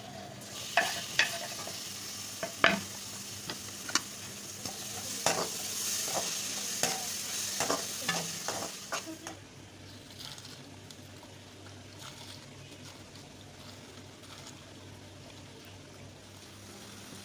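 Baingan bharta mixture frying and sizzling in a pan while a spoon stirs it, clacking and scraping against the pan. After about nine seconds the clacks stop and only a fainter sizzle goes on.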